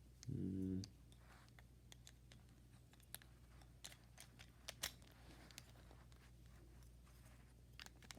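Faint, scattered clicks of plastic Rubik's Cube pieces being handled and fitted back together, with a brief low hum about half a second in.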